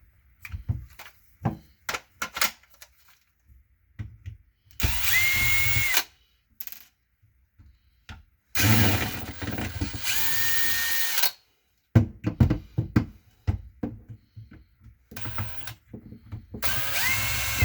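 DeWalt DCD995 cordless hammer drill run in three short bursts, the motor whine rising as it spins up, then holding steady, with clicks and knocks of the trigger and gear selector being handled between runs. The drill has a failing gear select with worn gear rings.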